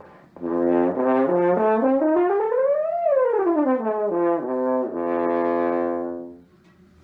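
Solo French horn playing a run of notes from its low register up to a high note and back down, then holding one long low note.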